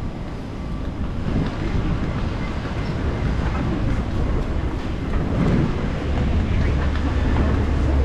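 Wind buffeting the walking camera's microphone: a loud low rumble over street noise, growing stronger about three quarters of the way in.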